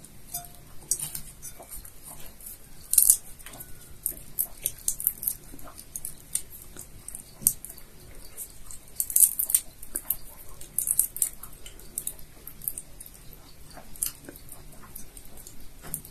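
Dry crackling and crinkling as brittle shells are peeled off dried shrimp by hand: irregular sharp, high-pitched clicks, some louder than others.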